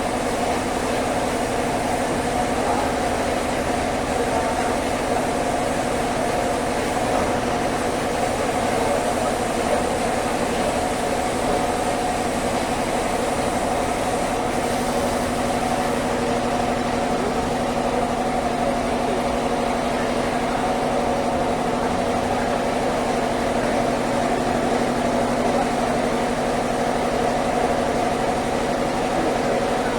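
Sawmill machinery running steadily, a constant hum of several steady tones.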